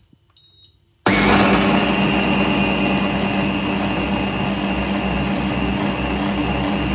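A single short beep from the Twistshake blender's touch panel, then its motor starts about a second in and runs steadily at one speed, blending the cooked onion-and-carrot sauce.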